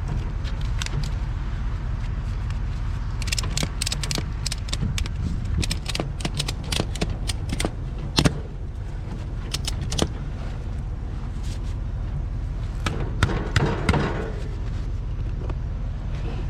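Ratchet strap being cranked tight around a tractor's front tire to squeeze the bead toward the rim: quick runs of sharp metal ratchet clicks between about 3 and 10 seconds in, with a few more near the end. Under them runs the steady low rumble of the Kubota BX2230's idling engine.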